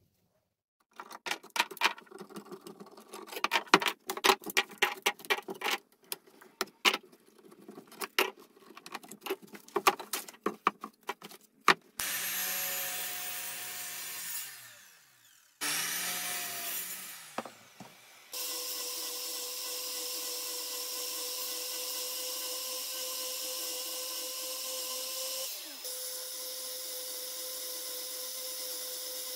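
A string of sharp clicks and knocks, then a sliding miter saw started twice, each time running for a couple of seconds and spinning down. After that a motor runs steadily with an even hum for the last ten seconds or so.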